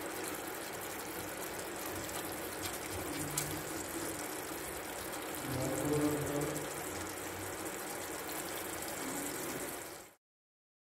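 Steady hiss of mutton curry cooking in a pot on a gas stove, cutting off suddenly near the end.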